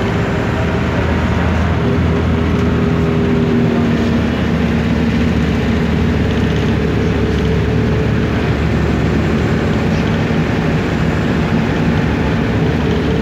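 Steady engine drone and road noise inside a moving minibus's cabin, with a constant low hum.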